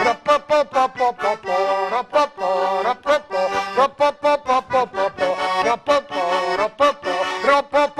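Diatonic button accordion playing a lively folk tune in quick, short rhythmic chords.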